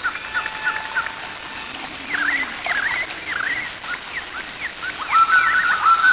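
Small animals chirping: many short, quick, sliding calls overlapping, with a run of repeated calls growing louder about five seconds in.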